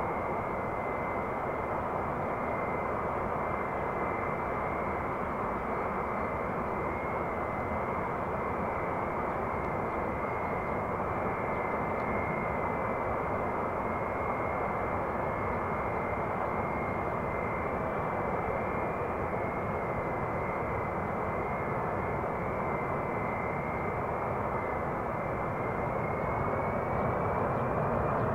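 Xian Y-20A transport's four turbofan engines running steadily: a high whine over a broad rush. The whine rises slightly and the sound grows a little louder near the end.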